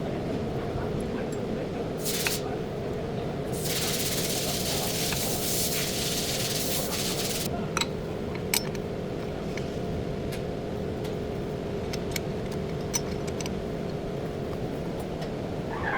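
Hissing spray in two bursts, a short one about two seconds in and a longer one of about four seconds, then scattered light clicks and taps, over a steady hum.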